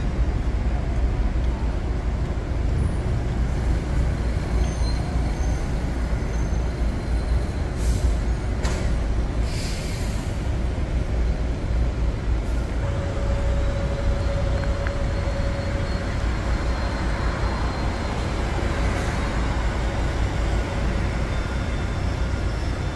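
City street traffic: a steady low rumble of passing cars and buses, with a short sharp hiss of released air, like a bus air brake, about ten seconds in. A thin steady whine is held through the second half.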